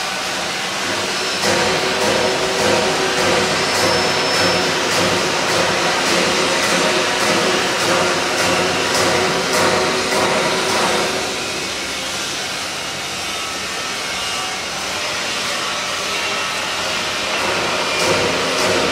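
Hydraulic power pack of a high shear mixer granulator running while it drives the stainless-steel lid closed: a steady motor-and-pump hum. It grows louder about a second and a half in, eases off about eleven seconds in, and rises again near the end.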